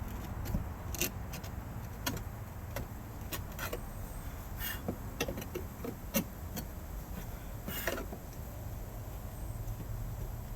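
Irregular taps, clicks and short scrapes of a chisel working at the silicone sealant around a light fixture's mount, over a steady low rumble.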